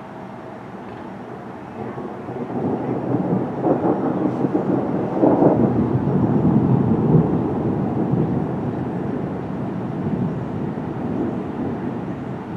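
Rolling thunder: a low rumble that builds about two seconds in, is loudest around the middle, then slowly fades.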